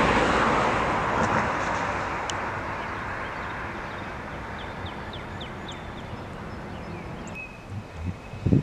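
Noise of a passing vehicle, fading slowly as it moves away, with a few short bird chirps over it. A few short, low sounds come near the end.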